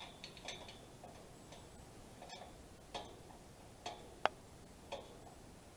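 Scattered light metallic clicks and taps, about one a second and irregular, the sharpest about four seconds in, as hands work at a winch and its fittings on a steel lattice tower section.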